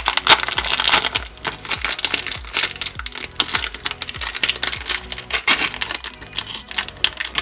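Thin plastic wrapper of a packet of soft modelling clay crinkling and crackling as fingers peel it open and pull the clay out. It makes a dense, uneven run of small crackles.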